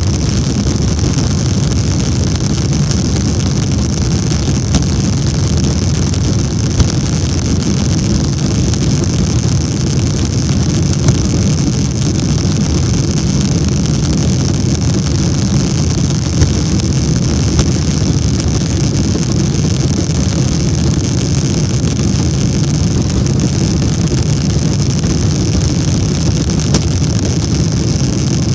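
Cabin noise inside a Boeing 747 on its takeoff roll: the four jet engines running in a steady deep rumble with a steady high whine over it. A few small knocks sound now and then.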